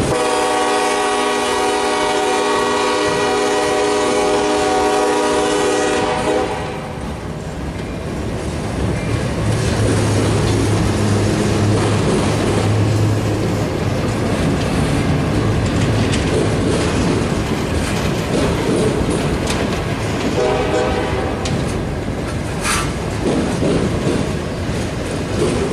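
EMD SD70ACe diesel locomotive blowing its air horn in one long blast of about six seconds, then its engine rumbling past as the auto rack cars clatter over the rail joints. A shorter horn sound comes about twenty seconds in.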